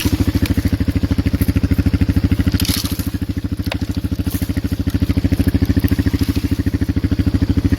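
Polaris Magnum 425 ATV's single-cylinder four-stroke engine running at low trail speed with a steady, fast exhaust pulse. It eases off about three seconds in and picks up again. A few faint crackles and scrapes sound over it, from branches brushing the machine.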